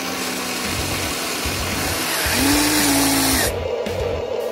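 Electric motors of a Huina 1593 RC excavator whining in spurts as the boom and bucket are driven down into the dirt, with a pitched hum that rises slightly about two seconds in.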